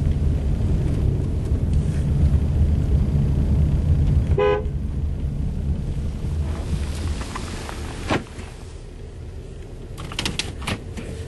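Car pulling away with a low engine and road rumble, and one short horn toot about four and a half seconds in. The rumble dies down after about six seconds, leaving a few light clicks.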